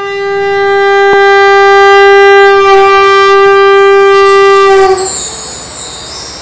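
Conch shell blown in one long, steady note for about five seconds, then a shimmering run on a set of bar chimes.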